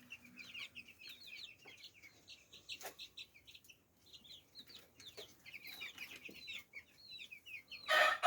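A flock of two-week-old broiler chicks peeping, a steady stream of short, high cheeps with a few soft knocks among them. A much louder, drawn-out fowl call starts just before the end.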